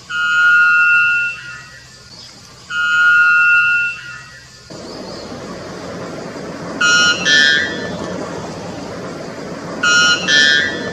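White bellbird calling: two long, clear held notes of about a second each, then two short two-note calls whose second note is higher. A steady hiss comes in behind the calls about halfway through.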